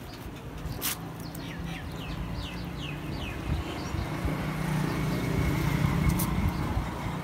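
A bird calling a quick run of about seven short falling chirps in the first half. A low hum, like a passing engine, swells under it and is loudest near the end. There is also a single sharp click about a second in.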